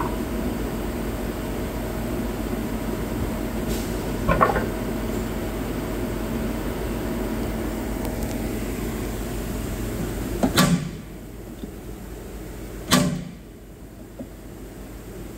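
Okuma Genos CNC lathe running with a steady machine noise, broken by a few sharp knocks: one a few seconds in, two more near the end. The running noise drops much quieter after the knock at about ten seconds.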